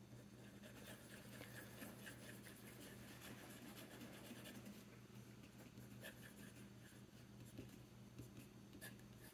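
Faint scratching of a TWSBI Eco fountain pen's medium nib on paper, in many short strokes as it writes and scribbles.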